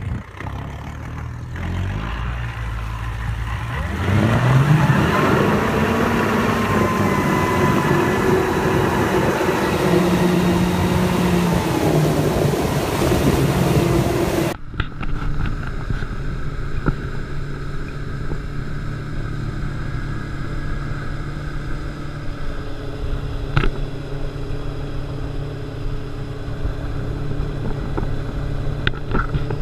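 Mercury Racing 400R supercharged outboard accelerating hard, its pitch climbing for several seconds from about four seconds in and then holding high. Partway through, the sound cuts suddenly to the same engine running steadily at speed.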